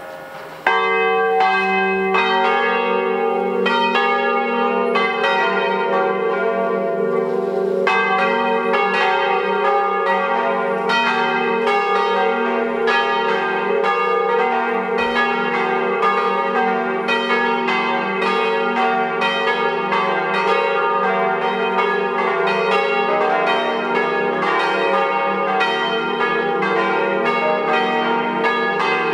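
Swinging church bells from a five-bell diatonic set in E-flat, pealing together in a dense stream of overlapping strokes. The full peal comes in suddenly and loudly about a second in.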